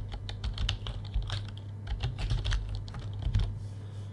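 Typing on a computer keyboard: a quick, uneven run of key clicks that stops about three and a half seconds in.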